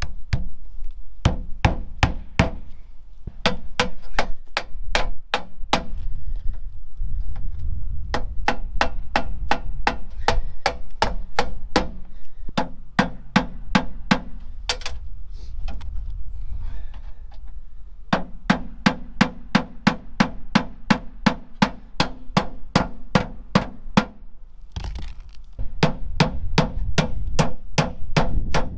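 Hand hammer driving nails, in quick runs of sharp strikes about two to three a second with short pauses between nails.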